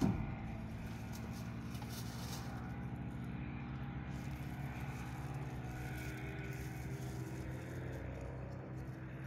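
An engine running steadily with an even low hum.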